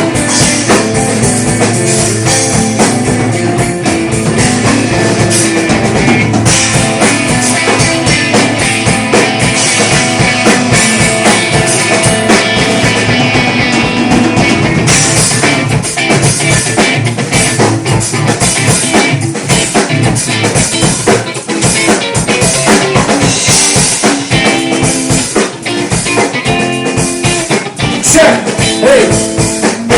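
A rock band playing live during a sound check: a drum kit with guitar and bass, busy drumming throughout.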